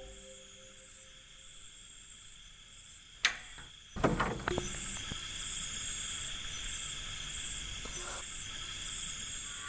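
Steady high insect chirring, with a sharp click about three seconds in and a knock about a second later, after which a low background rumble sets in.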